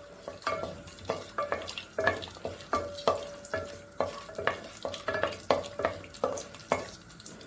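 Wooden spatula stirring whole spices frying in oil and ghee in a nonstick kadai: quick scraping knocks, about two or three a second, each making the pan ring briefly, over a light sizzle. The stirring stops near the end.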